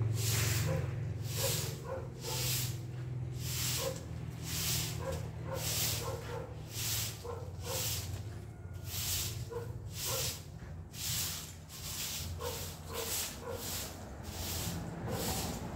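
Long-handled straw broom sweeping leaves across a tiled floor: a scratchy swish with each stroke, about one and a half strokes a second.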